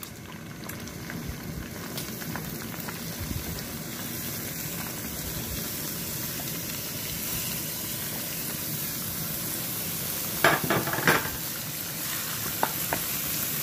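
Cubes of beef sizzling as they go into hot melted sheep tail fat, a steady frying hiss that slowly gets louder as more meat goes in. A few clatters of stirring come near the end.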